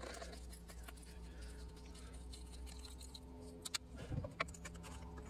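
Faint steady background hum, with a few light clicks and a soft knock about three and a half to four and a half seconds in: hand tools working a hose clamp in the engine bay.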